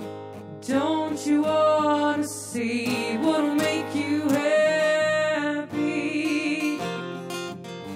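Live acoustic guitar with a woman singing over it. The voice comes in about a second in with long, gliding sung notes, and the guitar carries on alone near the end.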